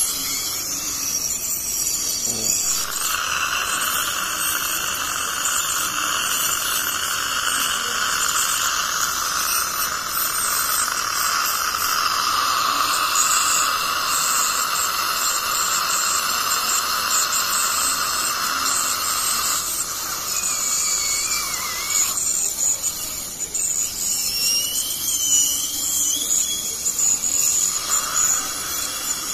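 Ultrasonic dental scaler running against a tooth with its water spray hissing, knocking tartar off at the gumline. A steady whine comes in about three seconds in and eases off around twenty seconds in, while the hiss goes on.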